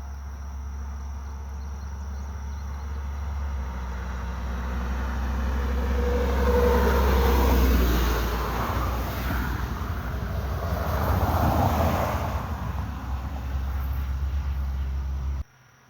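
Vehicles passing on a road, with engine and tyre noise swelling to a peak about eight seconds in and again about twelve seconds in, then cutting off abruptly near the end.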